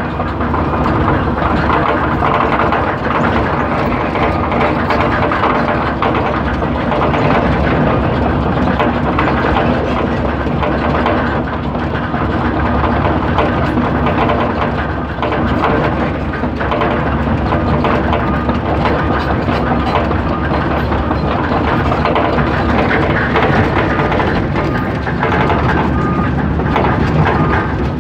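Diesel engine of a 330 tracked excavator running steadily while the machine travels, heard from inside the cab.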